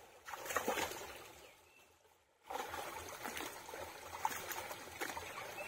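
Water trickling and running in a shallow stream, with a few short splashy clicks. It fades to almost nothing about two seconds in, then comes back steadily.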